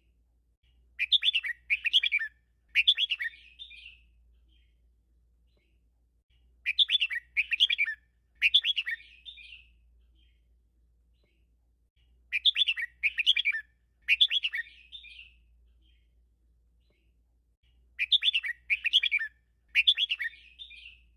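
Red-whiskered bulbul singing a 'teacher' song in the doubled style: four bouts about six seconds apart, each a quick run of three or four warbling notes.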